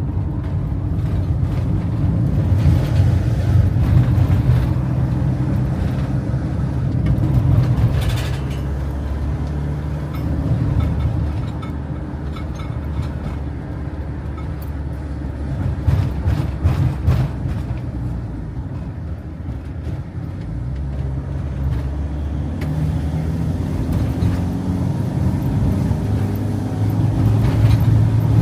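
Vehicle engine and road noise heard from inside the cabin while driving, a steady low hum whose pitch shifts up and down several times with changes in engine speed.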